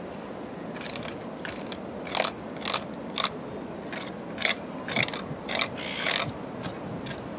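Small tuna knife scraping blood from inside a rock blackfish's rib cage, in about ten short, uneven strokes of the blade against the bones.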